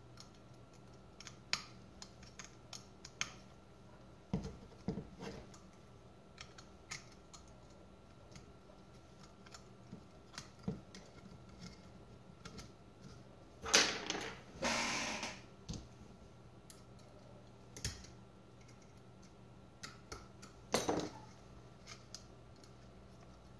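Small scattered metal clicks and taps of a tiny Allen wrench working the screws of an aluminum case end plate, with the case being handled. A louder clatter comes about halfway through, and a sharp knock near the end.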